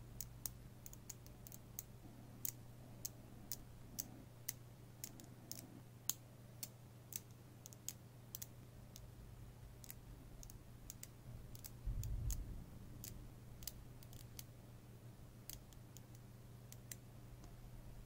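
Small neodymium magnet balls clicking sharply as clusters snap onto a ball structure, irregular clicks at roughly one to two a second. A short low dull bump about twelve seconds in, over a faint steady low hum.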